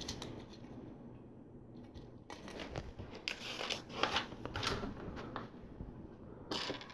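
Plastic LEGO pieces being handled and pressed together: a few light clicks and rustles, starting about two seconds in.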